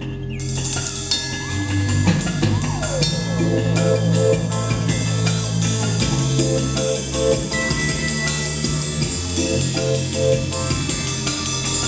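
Live band playing an instrumental passage: a drum kit keeps a steady beat with cymbals over held low notes that change every couple of seconds, and an electric guitar repeats a short figure of notes.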